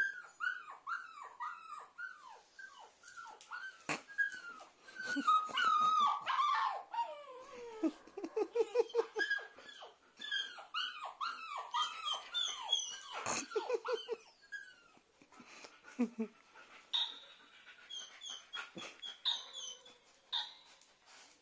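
A dog whimpering and yelping: many short, high cries that each fall in pitch, coming in quick runs with brief pauses.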